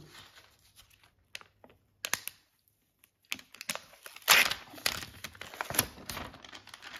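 Protective plastic film crinkling and rustling as it is handled and peeled off a new tablet, with a few scattered clicks early on and denser, louder crackling from about four seconds in.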